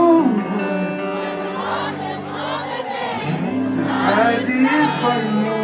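Live concert music: singing voices over long held chords, with crowd voices mixed in.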